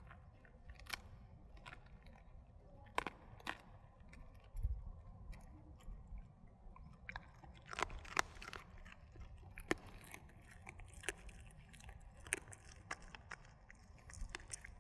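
A dog chewing dried duck bones: sharp crunches and cracks of bone between its teeth, coming irregularly, often a second or more apart.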